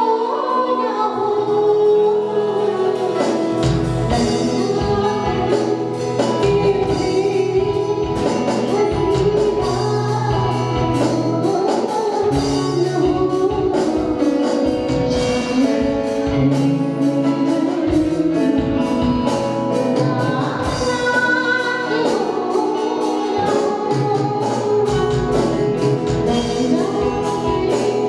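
A woman singing a melodic song into a microphone, amplified through a PA, with a live band of drum kit, keyboards and electric guitar. The drums and bass come in about three and a half seconds in and keep a steady beat.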